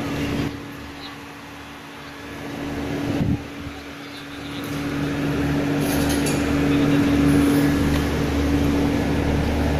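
Duronto Express coaches rolling along a station platform: a low rumble of wheels on rails under a steady hum, growing louder from about halfway through.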